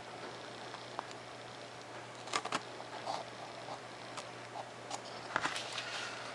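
Razor knife cutting straight lines through a sheet of 3mm Depron foam against a ruler, with scattered light clicks and taps as the knife and ruler are handled.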